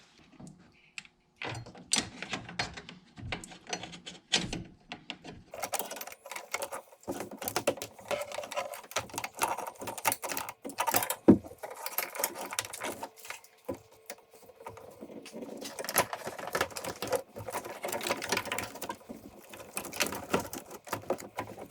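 Hand tools at work on a vehicle's battery cable bolts: a socket ratchet clicking quickly, with metal clinks and knocks. There are a few separate knocks at first, and the clicking runs nearly without a break from about five seconds in.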